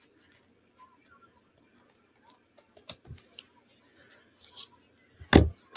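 Paper being handled at a craft table: light rustles and small clicks, a sharper click about three seconds in, then a loud knock of a hard object on the tabletop near the end.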